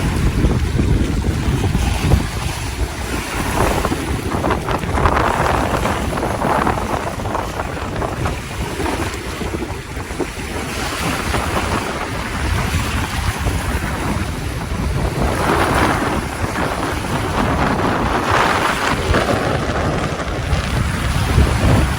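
Sea waves washing in and swelling every few seconds, under a heavy low rumble of wind buffeting the microphone.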